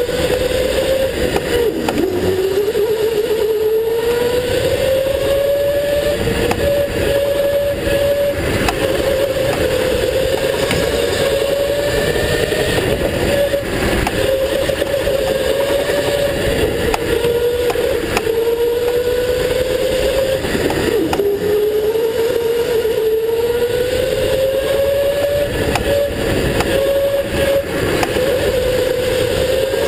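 Go-kart motor running at speed, its whine dropping sharply in pitch as the kart slows for a corner about two seconds in and again about twenty-one seconds in, once per lap, then climbing slowly back up. Constant rumble and rattle from the kart runs underneath.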